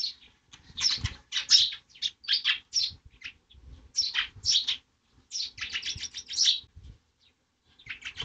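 Sparrows chirping: quick runs of short, high chirps in clusters, with brief pauses between them.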